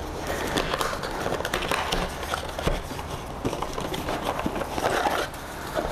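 Cardboard product box being opened by hand: the flap and a paperboard insert rustling and scraping, with many small crackles and clicks.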